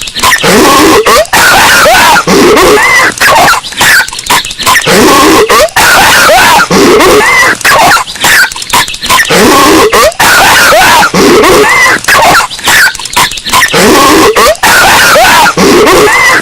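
Patrick Star's cartoon voice coughing over and over. It is boosted so loud that it clips into harsh distortion.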